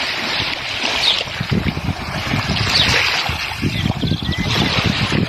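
Rushing stream water, a steady hiss, with an uneven low rumble starting about a second and a half in.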